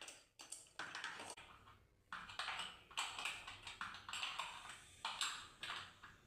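Faint, irregular scraping and clicking strokes, about a dozen in a row, of a spanner tightening the nuts on a toilet mounting bracket's threaded studs.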